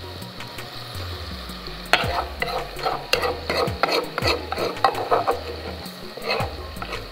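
Chopped onions, tomatoes and ground pepper sizzling in hot oil in a pot. A metal spoon scrapes and knocks several times, mostly in the middle of the stretch and once more near the end.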